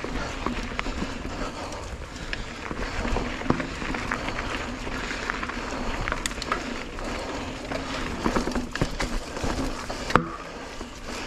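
Mountain bike rolling down a dirt forest singletrack: tyres on dirt, leaves and roots, with frequent knocks and rattles from the bike over the bumps, the sharpest knock about ten seconds in.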